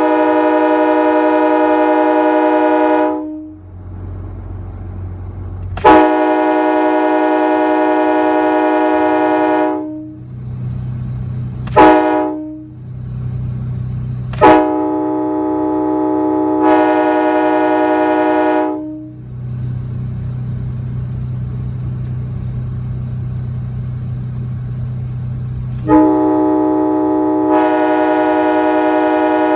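Nathan AirChime K5HA five-chime train horn, a parts-built horn with sandcast bells, sounding its chord in repeated blasts of about three to five seconds, with one short toot about twelve seconds in; each blast starts sharply and cuts off cleanly. A low steady hum fills the gaps between blasts.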